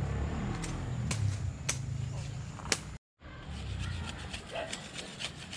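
A large knife cutting through a leafy branch, with a few sharp cracks of the blade on the wood in the first three seconds. After that come lighter ticks and scraping as a stick is shaved with the knife. A low rumble runs under it all.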